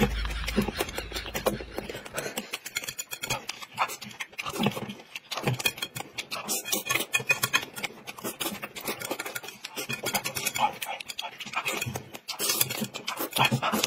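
Close-up eating sounds of a man chewing and smacking on a mouthful of noodles: a quick, irregular run of wet mouth clicks.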